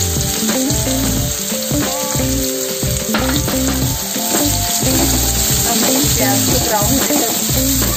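Freshly added chopped onions sizzling in hot oil in a non-stick kadai, stirred with a wooden spatula. Steady background music plays underneath.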